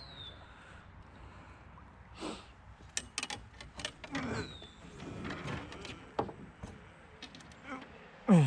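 Scattered knocks, clunks and short scrapes as a canoe and gear are handled and pulled out at a dock.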